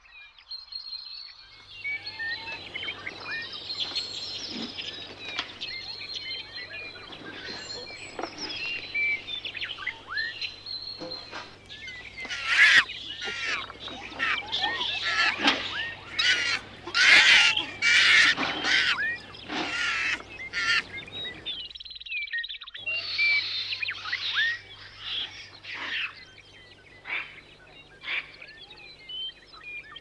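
Forest ambience full of birds chirping and calling, a dense chorus of short high chirps and whistles that grows busiest and loudest in the middle, with the whole soundtrack briefly cutting out about two-thirds of the way through.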